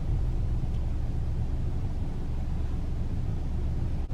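Car cabin noise while driving: a steady low rumble from the engine and road.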